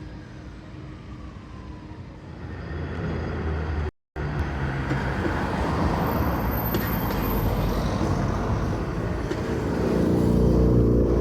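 Tram running past on street track, a steady rumble that grows louder towards the end. The sound drops out for a moment about four seconds in.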